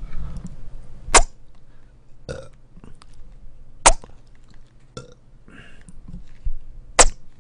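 Eating noises close to the microphone, from a person eating a shrimp burger and cheese sticks: three sharp, loud crunches about three seconds apart, with softer mouth and chewing clicks between them.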